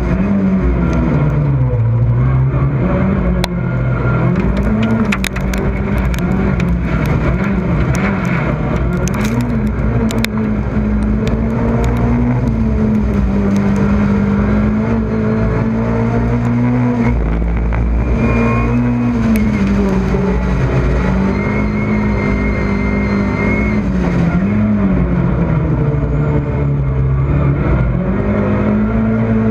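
Rallycross race car's engine heard on board at racing speed, its pitch climbing and dropping again and again as it accelerates, shifts gear and lifts for corners. A scatter of sharp ticks runs through the first third.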